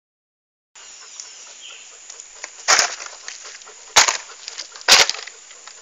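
A bear sniffing at the microphone from very close: three loud, short blasts of breath about a second apart, over faint crackling.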